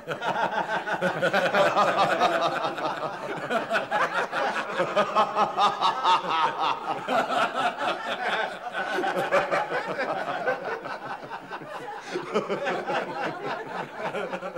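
A group of men laughing together: overlapping chuckles and loud laughter, at its fullest in the first half and dying down toward the end.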